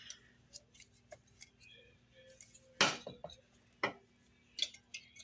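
Scattered sharp clicks and light clinks of a foglight housing and its H3 halogen bulb being handled and fitted by hand, the loudest just before three seconds in and another near four seconds.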